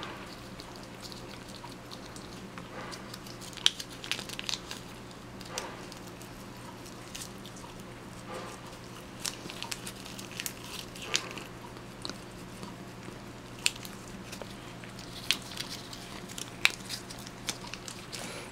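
Dachshund licking paste from a squeeze-tube treat held in a hand, with irregular wet tongue-and-lip smacks and clicks over a steady low hum.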